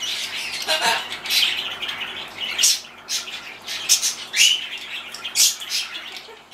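Blue-and-yellow macaw making a series of short, sharp squawks and chirps, with one rising call about four seconds in.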